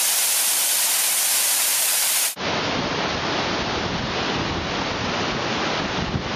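Waterfall rushing steadily. For the first couple of seconds it is a thin, bright hiss with no deep rumble; about two and a half seconds in, it cuts to a fuller, closer rush with a deep rumble underneath.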